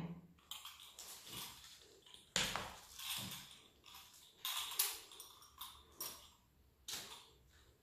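Pastry wheel rolling through a sheet of shortcrust pastry on baking paper, with faint scraping and paper rustling. It comes as about eight short strokes with brief pauses between them.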